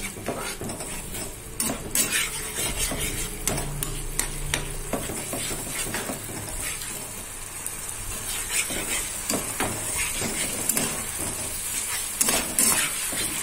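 Onion-tomato spice masala sizzling in a non-stick frying pan as a spatula stirs and scrapes it round, with a steady hiss and irregular scrapes and taps. This is the masala being fried down before water is added.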